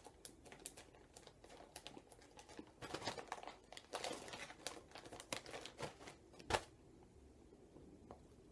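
Faint, irregular crinkling and crackling of a plastic Ziploc pouch of dry loose-leaf chewing tobacco being handled. The crackles bunch up about three and four seconds in, and there is one sharper click about six and a half seconds in.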